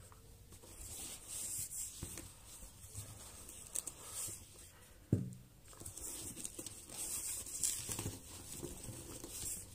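Hands handling drone accessories and setting them down on a cloth-covered table: rubbing and rustling, with a single knock about five seconds in.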